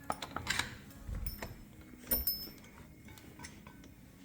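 A few light metallic clinks and taps from the front axle and its washer being handled and lined up with the wheel and spacers. One clink a little after two seconds rings briefly.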